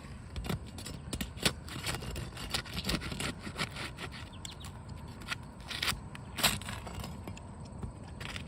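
Three-tab asphalt roof shingles being pried and pulled up: a run of sharp cracks and scrapes, the loudest about a second and a half in and again about six and a half seconds in, as the shingles crack and tear while they come loose.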